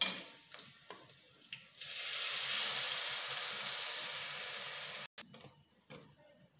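Liquid poured from a steel bowl into hot oil in a kadhai, setting off a loud, steady sizzle that starts about two seconds in, fades slowly and cuts off after about three seconds. A few light knocks of utensils come before and after it.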